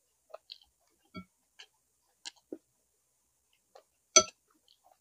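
Eating at the table: scattered soft mouth clicks and small taps. About four seconds in comes one sharp, ringing clink of tableware, the loudest sound, with a smaller clink a little after one second.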